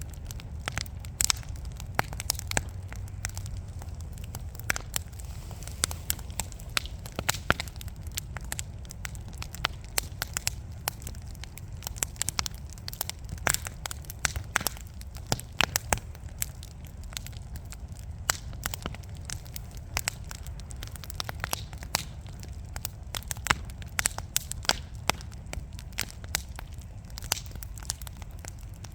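Wood fire burning in a fireplace: irregular sharp crackles and pops from the burning logs, several a second, over a steady low rumble of the flames.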